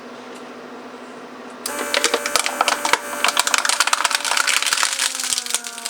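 A plastic bottle crackling and crumpling as a Mercedes 500SL door lock vacuum pump sucks it flat. The crushing starts suddenly about two seconds in and continues in dense snaps over a steady hum.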